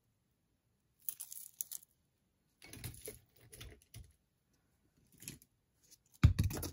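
Costume jewelry pieces and loose beads clicking and rattling against a poster board as they are handled and set down, in several short bursts, the loudest near the end.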